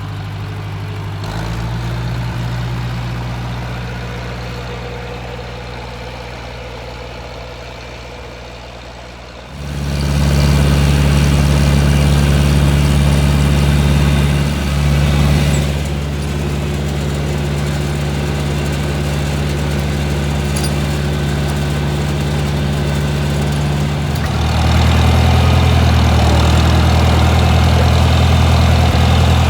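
Tractor engine running steadily while pushing snow. It jumps abruptly louder about a third of the way in, dips for a moment, then steps louder again near the end.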